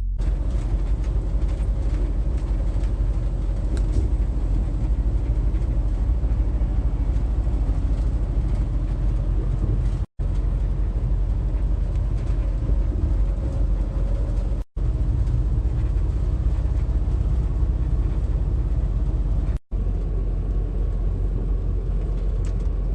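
Steady road and engine rumble of a moving vehicle heard from inside the cabin. It cuts out abruptly for an instant three times, at about 10, 15 and 20 seconds in.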